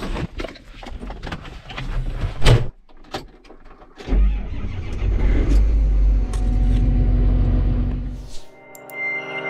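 Clicks and knocks in a tractor cab with a loud thump about two and a half seconds in, then a John Deere 8420 tractor's diesel engine starting about four seconds in and running at a steady low pitch. Music comes in near the end.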